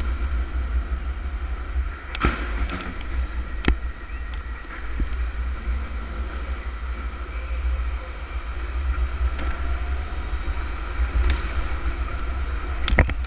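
Electric go-kart at speed, heard onboard: a heavy low rumble under a steady whine, with a few sharp knocks along the way.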